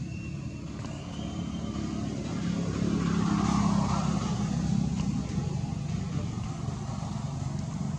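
A motor vehicle's engine running as it passes, growing louder to a peak about three to four seconds in and then fading somewhat.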